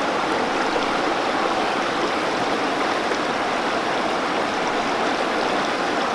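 Rushing water, a steady even rush with no pauses or changes.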